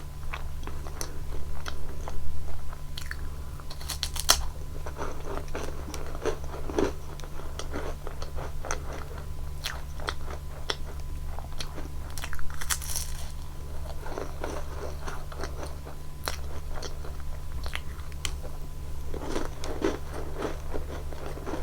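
Close-miked biting, crunching and chewing of Nunettine, a flaky puff-pastry cookie, in irregular bites, the sharpest crunches about two, four and twelve seconds in. A steady low hum runs underneath.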